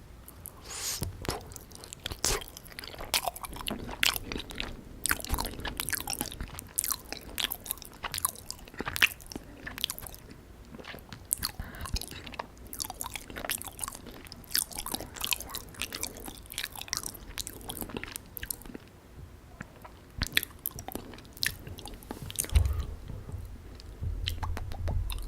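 Close-miked chewing and biting of syrup-soaked canned gulab jamun: irregular mouth clicks and smacks, with some low thumps near the end.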